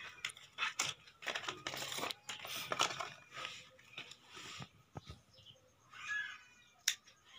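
Clear plastic blister packaging crinkling and crackling irregularly as it is handled and pulled open, with a single sharp click near the end.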